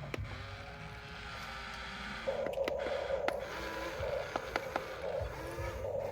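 Small electric gear motors of a radio-controlled toy excavator or dump truck whirring, joining in with a steady buzz about two seconds in, with scattered plastic clicks.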